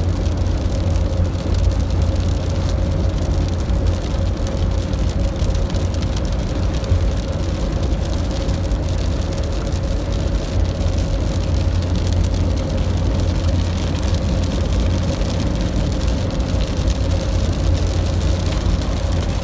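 Heavy rain pouring steadily, a dense hiss of drops over a deep low rumble, with a faint steady hum underneath.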